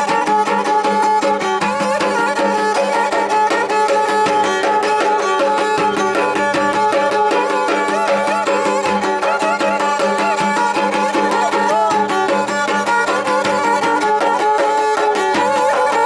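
Turkish folk music on a small pear-shaped bowed fiddle, a wavering melody over a held drone note, with a large davul drum beaten by hand in a steady rhythm.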